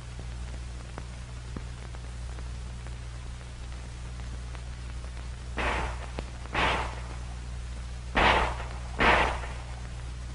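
Handgun fired in two quick two-shot bursts: a pair of shots about five and a half seconds in and another pair about two and a half seconds later, each pair about a second apart. Under them runs the steady hum and hiss of an old film soundtrack.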